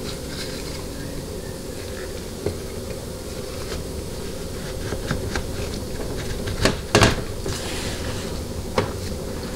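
Clicks and knocks of metal transmission parts being handled as a ring-sizing tool is fitted over a 200-4R center support's teflon sealing rings. The loudest knocks come about seven seconds in, over a steady background hum.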